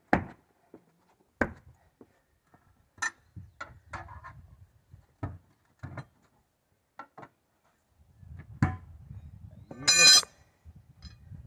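Hand work on a large tractor tyre being mounted on its rim: scattered knocks and clinks of tools and rubber, then a short, loud squeal about ten seconds in.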